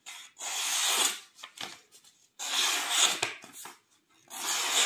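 A Due Buoi 231 folding knife's Böhler N690 steel blade slicing through a sheet of paper in three swishing strokes, each about a second long, with short gaps between. The edge is sharp and cuts cleanly.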